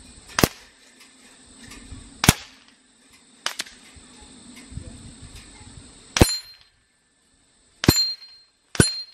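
Six pellets striking hanging steel targets, one at a time about one to two seconds apart, each a sharp clank. The last three hits leave the steel ringing with a brief bell-like tone. The shots come from a .25-calibre LCS SK-19 PCP air rifle fired on single shot.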